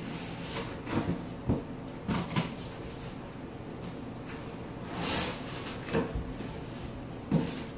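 Soft, irregular taps of a damp makeup sponge (beauty blender) being dabbed against the face to blend in foundation, with a short hiss about five seconds in.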